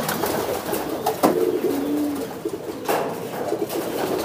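Domestic pigeons cooing: low drawn-out coos, one sliding down in pitch about halfway through, with a couple of short clicks.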